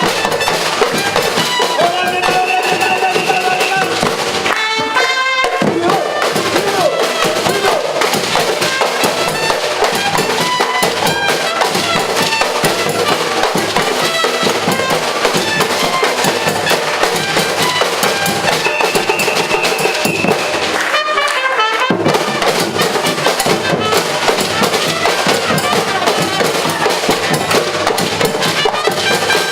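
Live percussion band music: drums playing a dense, driving rhythm without a break. Short held high notes sound at about two seconds and again at about nineteen seconds, and each is followed by a quick rising run.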